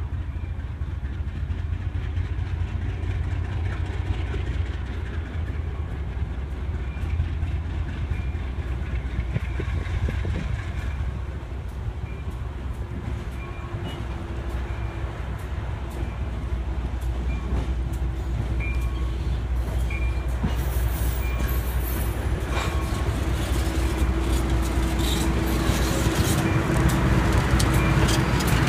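GE B23-7 diesel locomotive with its V12 engine running as it pulls freight cars slowly toward and past, getting louder as it draws near. A bell dings at a slow, steady pace.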